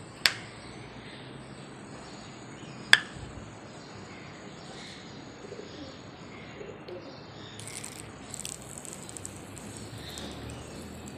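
Birds chirping faintly in the background, broken by two sharp clicks, one just after the start and one about three seconds in. About eight seconds in come brief soft hisses from a hand trigger spray bottle.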